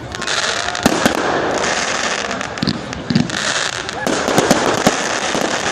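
Fireworks display: a dense, continuous crackling with several sharp bangs, a pair about a second in, more around three seconds and a cluster between four and five seconds.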